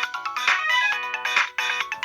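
A pre-downloaded polyphonic ringtone playing through the Samsung SGH-D600 mobile phone's speaker: a melody in several voices over a beat, with a strong hit about once a second.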